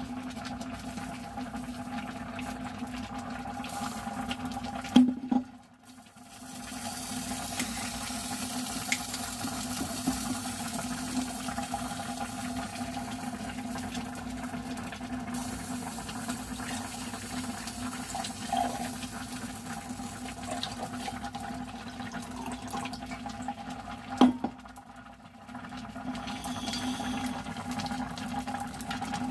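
A pot of ramen and dumplings boiling steadily on the cooktop, with a steady hum. Wine is poured from a bottle into a glass for several seconds in the middle, stopping abruptly. There is a sharp knock about five seconds in and another near the end.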